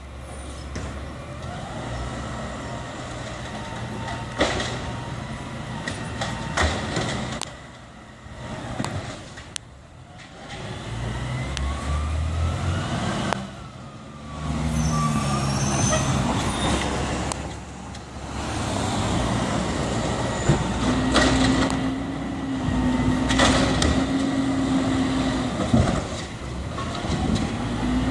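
Garbage truck's diesel engine running and revving up and down as the truck works along the street, with a few sharp knocks and clanks.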